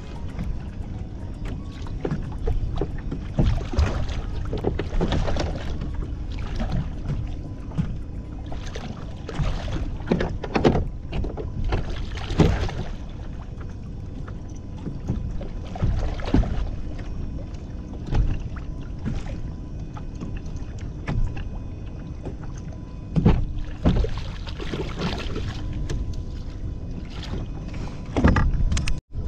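Small waves lapping and slapping against a kayak hull at sea, with irregular splashes and knocks over a steady low rumble.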